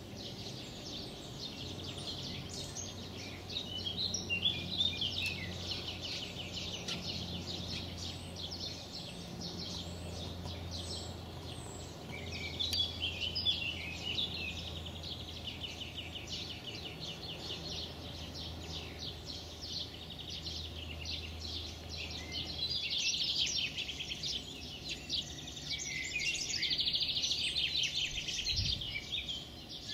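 Songbirds singing, several fast chattering trills and chirps overlapping and swelling louder in stretches.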